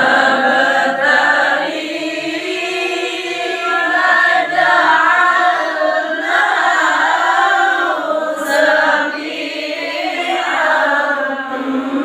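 Young male voices reciting the Quran aloud in the melodic tilawah style: long, drawn-out phrases whose pitch glides and wavers, broken by a short pause about eight seconds in.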